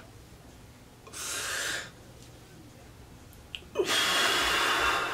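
A man's breathing around a vape pen drag: a shorter breath about a second in, then a longer, louder breath blown out through pursed lips from about four seconds in, exhaling the vapour.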